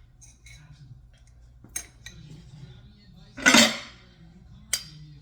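Metal parts and tools clanking while the belt sander's drum is being handled: three sharp metallic knocks, the loudest about three and a half seconds in, ringing briefly.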